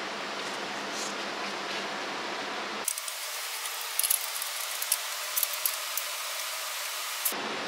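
Steady workshop background hiss, with a few light metallic clicks and taps in the middle as the oil pickup and its bracket are fitted to the engine block.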